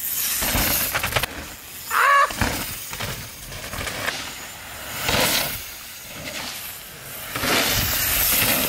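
Downhill mountain bikes passing over a muddy dirt trail: tyre noise and rattling that swell and fade in several passes, with a brief wavering high tone about two seconds in.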